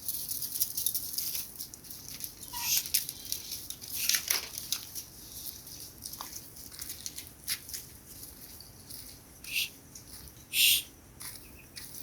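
Goats shuffling and rustling: scattered clicks and crackling, with two short, louder hiss-like bursts near the end.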